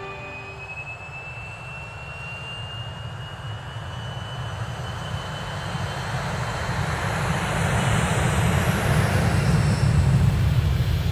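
Jet aircraft engines: a thin whine slowly rising in pitch over a rumble that grows steadily louder, peaking about ten seconds in.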